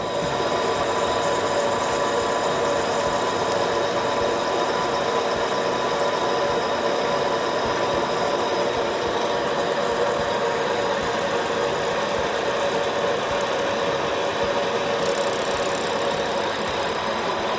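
Vertical milling machine cutting into a solid aluminium block with an end mill: a steady machining noise with several held tones from the spinning cutter over a grinding hiss, continuing without a break.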